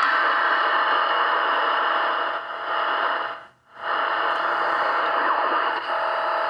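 1959 GE P807 transistor radio running on bench power, its speaker giving a loud steady static hiss. The hiss cuts out briefly a little past halfway and comes back, and a steady whistle tone joins it near the end.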